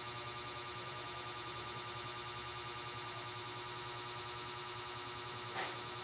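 Steady hum made of several fixed tones, with one short click about five and a half seconds in.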